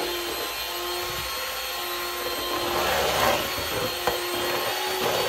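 Electric hand mixer running steadily, its beaters whisking cream cheese, cream and lemon juice in a mixing bowl, with one sharp knock about four seconds in.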